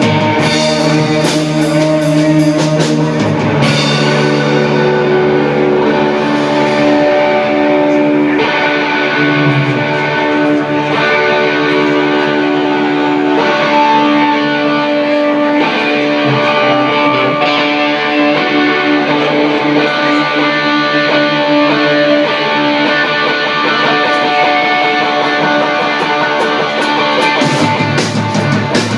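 Live rock band playing an instrumental passage on two electric guitars, electric bass and drum kit. After about four seconds the cymbals drop out, leaving ringing guitar chords over bass and drums, and the full kit with cymbals comes back in near the end.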